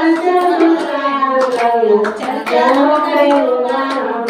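Women singing a Shiv charcha devotional bhajan, a lead voice into a microphone, with hands clapping in time to the song.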